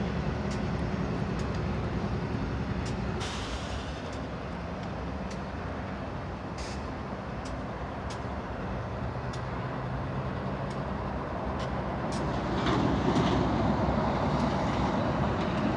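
BNSF intermodal freight train rolling past: a steady rumble from the cars with scattered sharp clicks, growing louder about twelve seconds in.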